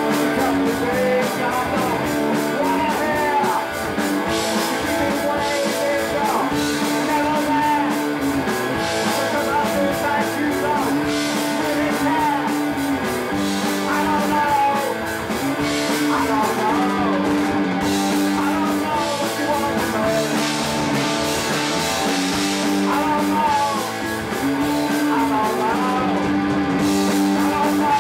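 Live punk rock band playing a song: electric guitar chords and drums with a sung vocal line over them.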